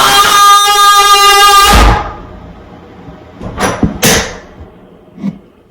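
A very loud, steady horn-like blare that cuts off suddenly just under two seconds in, followed by a low thump, then two short noisy crashes and a faint click.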